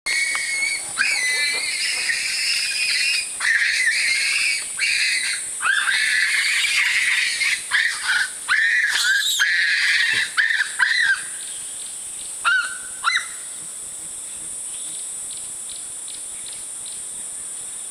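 Young olive baboon screaming over and over in high, wavering shrieks, apparently while being punished by an older male. The screaming stops about eleven seconds in, with two short cries a little later. A steady high insect drone runs underneath.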